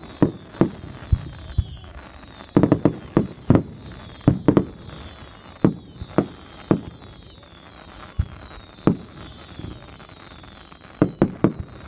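Fireworks going off: sharp bangs at irregular intervals, some in quick clusters of two to four, behind faint high whistles that fall in pitch over and over.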